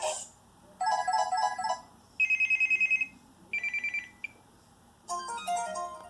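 Samsung Array phone's preloaded ringtones playing through its small speaker: a brief electronic melody, then two bursts of a fast trilling ring, then another short melody, each separated by a short pause.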